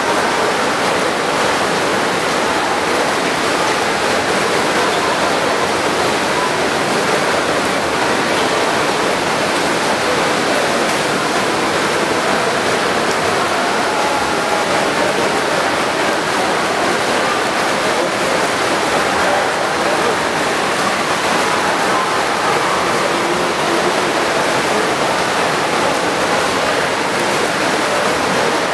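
Swimmers splashing through a freestyle race: a steady rushing wash of water with echoing voices mixed in, in a reverberant indoor pool hall.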